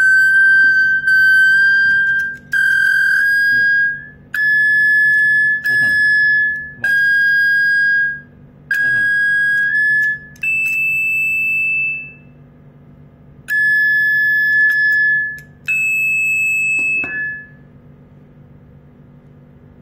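Video intercom call ringtone: an electronic melody of high beeping notes, mostly on one pitch with a couple of higher ones, in short phrases that stop about 17 seconds in. A faint low electrical hum runs underneath.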